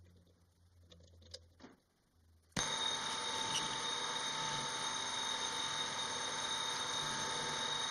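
A low hum with a few faint clicks, then a metal lathe's steady whine of several fixed tones cuts in abruptly about two and a half seconds in and holds, as the lathe runs and an indexable carbide insert takes a facing cut on the end of a round bar.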